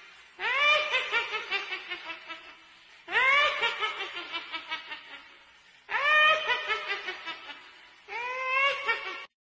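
A woman's high-pitched cackling laugh in four bouts a couple of seconds apart. Each bout opens with a rising squeal and breaks into rapid ha-ha-ha pulses that fade out.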